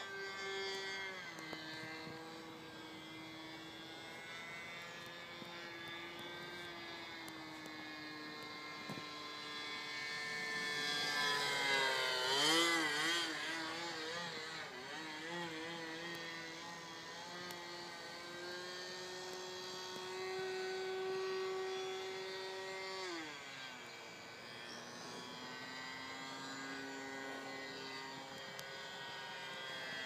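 Radio-controlled Seagull 40 model airplane's engine buzzing as it flies overhead. Its pitch holds, then glides down and up several times as the plane passes and changes throttle. It is loudest, with a rapidly wavering pitch, about twelve seconds in.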